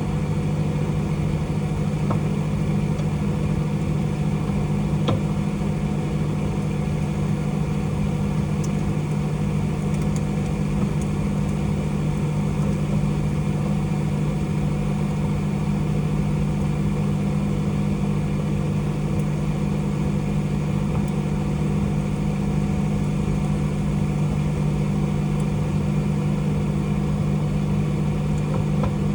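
Microwave oven running with a steel fork inside: a steady hum, with a few faint clicks.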